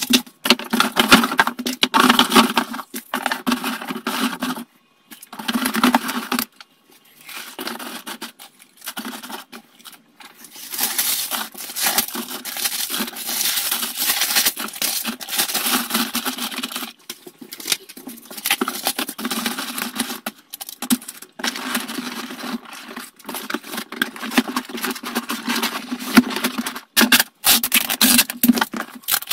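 Paper, foil and cardboard rustling and scraping as crumpled paper and foil are packed into a cardboard box lined with paper egg cartons. The noise comes and goes with short pauses. Near the end the box is closed and handled shut.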